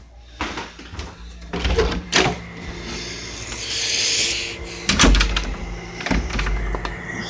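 Handling noise from a phone camera moved about close to its microphone: several dull knocks and a stretch of rustling, over a faint steady low hum.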